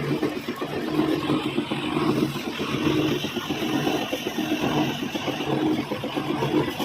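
Metal lathe running steadily, a low hum under a rough, noisy layer.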